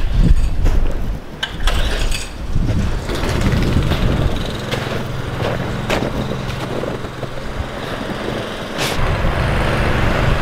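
A motor running with a steady low hum that settles in about four seconds in, over rumble and a few knocks.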